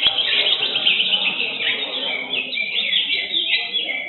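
Caged greater green leafbirds (cucak hijau) singing, a dense overlapping stream of quick chirps and trills.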